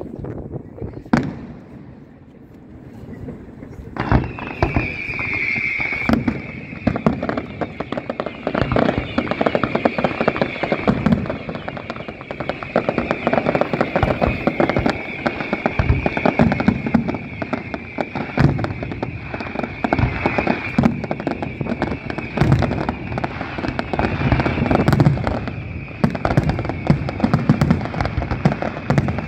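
Aerial fireworks bursting: a few separate bangs, then from about four seconds in a dense, continuous barrage of shell bursts and crackle.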